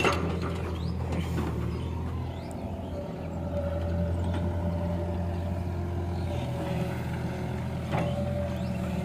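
Diesel engines of a crawler excavator and a Sonalika tractor running steadily. A load of mud clatters into the tractor's steel trolley at the start, a steady hydraulic whine follows as the excavator's arm swings back to the pit, and a knock comes near the end as the bucket digs in.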